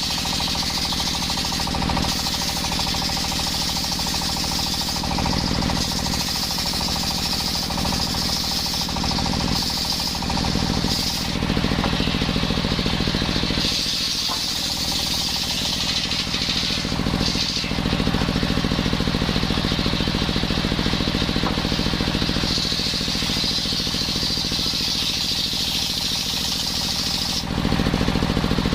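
Circular sawmill running, its blade sawing coconut wood over a steady low machine drone. The high cutting noise swells and fades several times as the wood is fed through.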